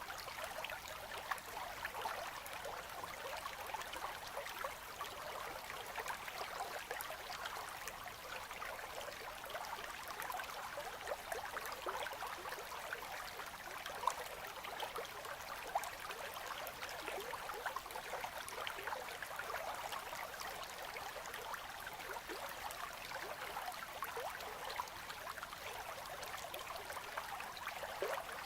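Winter river's slow current flowing steadily past ice, a continuous gurgling wash of water with small splashes and trickles throughout.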